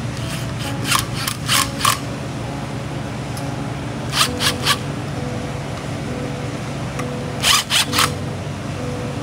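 Background music: a steady low bed of held tones with short, bright percussive hits in groups of three, repeating about every three seconds.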